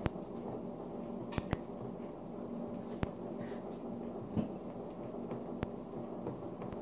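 A fork clicking and scraping against a plate as French toast is cut and eaten, about five sharp clicks spread over a steady low background hum.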